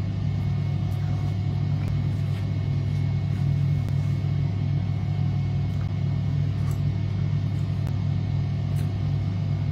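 A steady low hum, with a few faint clicks of a metal teaspoon against a glass tea mug.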